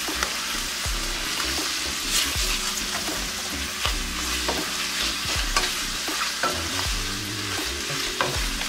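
Carrot strips and sliced mushrooms sizzling in oil in a stainless-steel sauté pan, stirred and tossed with a wooden spatula that scrapes against the pan now and then.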